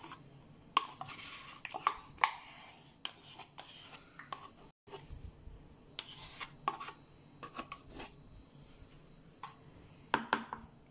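A spoon scraping strawberry velouté yogurt out of its plastic pot and onto whipped cream in a plastic tub: irregular clicks and scrapes of the utensil on plastic, broken by a brief silent gap about halfway.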